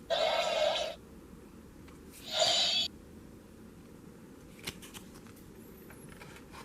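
Two short sword-slash sound effects, the first at the start and the second about two seconds later, from a fan-made Kamen Rider belt's saber attack.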